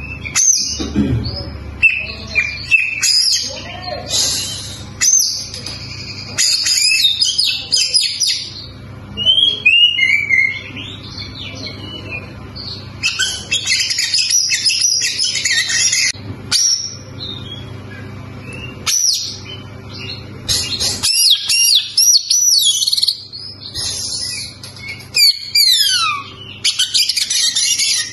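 Oriental magpie-robin (kacer) singing loudly and continuously: a varied song of whistles, trills and chattering phrases full of mimicked calls, in bursts with short pauses. Near the end it gives a run of steeply falling whistles.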